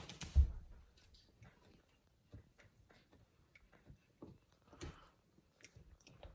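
Samoyed puppy gnawing on the corner of a wall and baseboard: scattered small clicks and scrapes of teeth on the edge, with a thump about half a second in.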